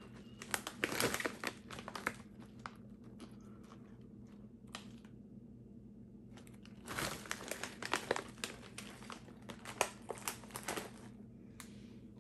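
Plastic snack packaging crinkling as it is handled and turned over in the hands, in two spells of sharp crackles with a quieter pause of a few seconds between.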